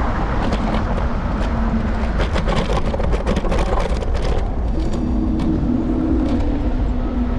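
Electric scooter riding over city pavement: a steady low rumble of wind and road on the handlebar-mounted microphone, with a run of rattling clicks over rough ground in the middle.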